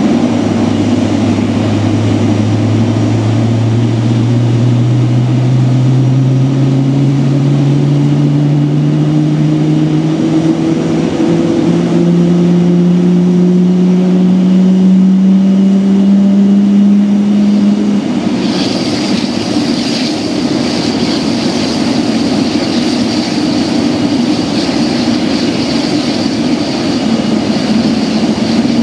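Boeing 777-300ER's GE90-115B turbofan spooling up during engine start: a low hum climbs steadily in pitch for about eighteen seconds over a constant rumble, then gives way to a steady high-pitched whine as the engine settles to idle.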